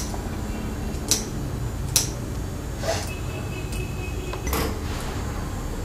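Scissors snipping through thick cloth: a series of sharp snips, one about every second.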